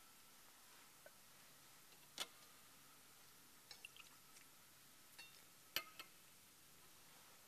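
Near silence with a few faint, sparse clinks and taps of vessels being picked up and set down on a table. Some ring briefly. The sharpest come about two seconds in and again near six seconds.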